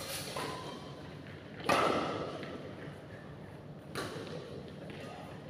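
Badminton rackets striking a shuttlecock during a rally: two sharp hits about two seconds apart, the first louder, each followed by a short echo.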